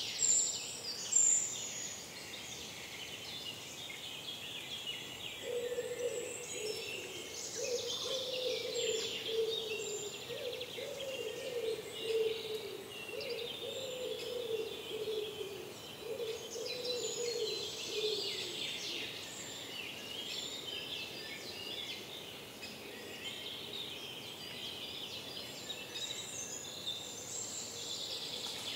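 Many forest songbirds singing together in a dawn chorus, with two loud, high calls near the start. A lower, repeated call from a bird joins in from about five seconds in until about eighteen seconds.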